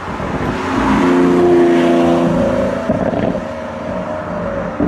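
Lamborghini Aventador's V12 engine running as the car drives along, a steady engine note that changes and drops lower about three seconds in.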